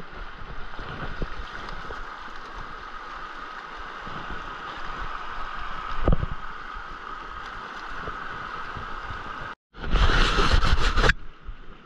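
Shallow creek water running over rocks, a steady rushing noise, with a single knock about six seconds in. Near the end the sound cuts out for a moment, then a loud rush of noise lasts about a second.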